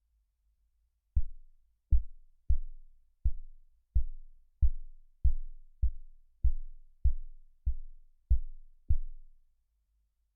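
A run of thirteen low, dull knocks, about one and a half a second, each dying away over about half a second.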